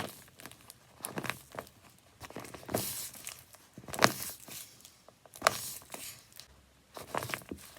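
Handmade paper squishy being squeezed and released, its paper crinkling in irregular bursts, the loudest about four seconds in.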